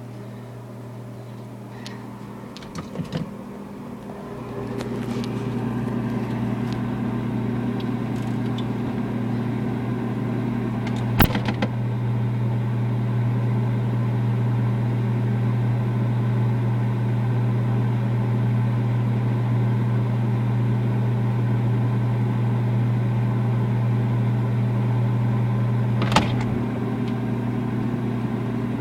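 A household appliance's steady low electrical hum that grows louder about four seconds in, after a few light clicks, then holds steady. Two sharp knocks cut across it, about eleven and twenty-six seconds in.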